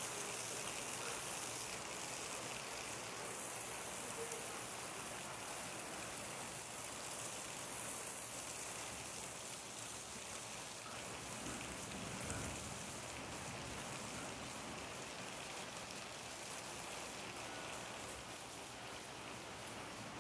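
Steady rain falling on pavement and roofs, an even hiss of drops, with a brief low rumble near the middle.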